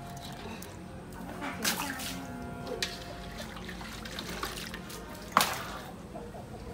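Water splashing and draining from a plastic basket holding a softshell turtle as it is lifted out of a steel pot of hot water. There is a sharp knock about five seconds in.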